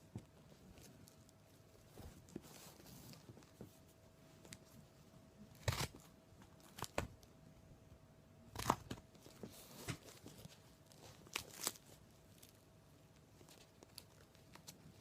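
Shipping package being opened by hand: wrapping and tape tearing and crinkling in short, scattered crackles, the loudest about six, nine and eleven and a half seconds in.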